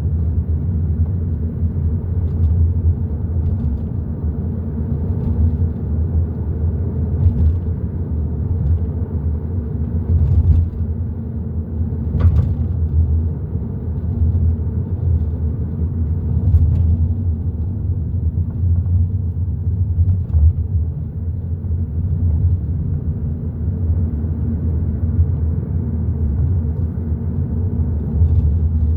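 Hyundai i30 N Line being driven: a steady low rumble of engine and road noise, with a few faint light ticks here and there.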